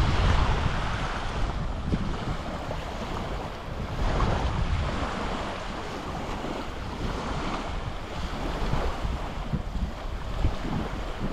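Small waves washing onto a beach, the wash rising and falling every few seconds, with wind rumbling on the microphone.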